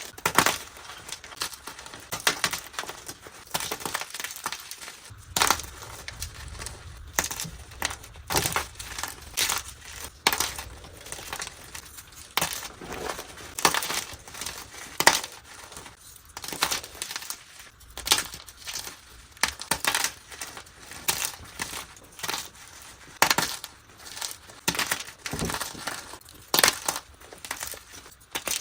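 Plain gym chalk blocks being crushed and crumbled: a run of sharp, dry crunches and snaps at irregular intervals, some louder than others.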